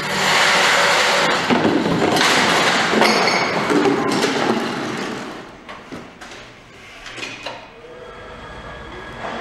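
Tugger train trailer carts, riding on their own castors rather than lifted, rattling and banging as they swing out through a turn, with plastic crates clattering onto the floor. The loud clatter runs for about five seconds and then dies down to a few scattered knocks.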